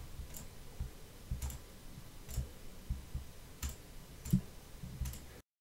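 Computer mouse clicked about once a second: six separate sharp clicks, each with a soft low thud. The sound cuts off abruptly near the end.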